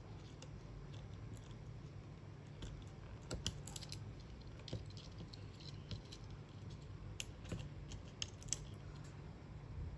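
Scattered small plastic clicks and taps of wire connectors being worked loose and unplugged from a refrigerator control circuit board, over a faint steady low hum.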